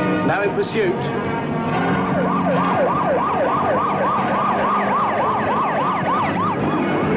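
Police car siren in a fast yelp, rising and falling about three to four times a second; it starts about two seconds in and stops near the end.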